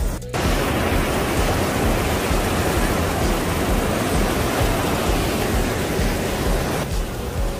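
Steady rush of white water at Huka Falls, the Waikato River churning through a narrow rock channel. It starts just after a brief break at the very beginning and eases off near the end.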